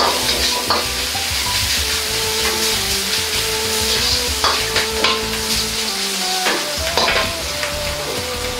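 Ground meat sizzling in hot oil in a carbon-steel wok, stirred and pressed with a metal wok ladle that scrapes and clicks against the pan several times. The mince is being fried until it turns white and its fat runs clear.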